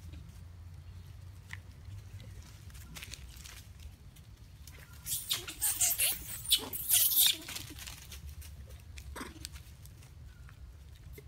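Dry leaf litter rustling and crunching in a loud burst of about two seconds near the middle, over a steady low hum.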